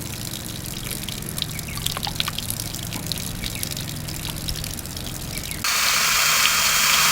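Water dripping and trickling, many small irregular drips over a low steady hum. About five and a half seconds in, a louder steady hiss, like rushing or spraying water, starts abruptly.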